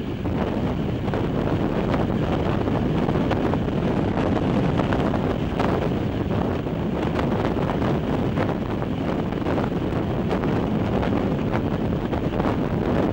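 Regional train running at speed, heard at an open window: a steady rush of wind over the microphone mixed with the train's running noise on the rails.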